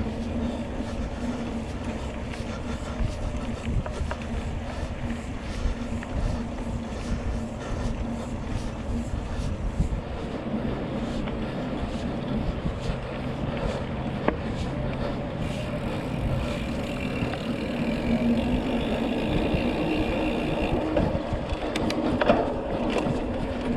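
Mountain bike ridden along a dirt trail: a steady rumble of tyres on dirt and wind on the microphone, with many small knocks and rattles from the bike over the bumps.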